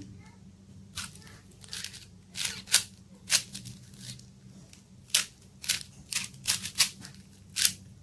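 Plastic layers of a 4×4 Rubik's cube being turned by hand, snapping round in about a dozen quick, irregular clicks, some in close pairs.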